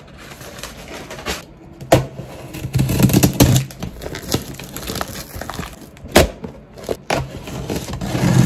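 Box cutter slicing through packing tape and plastic on a cardboard shipping box: scraping and crinkling, with a few sharp clicks and knocks.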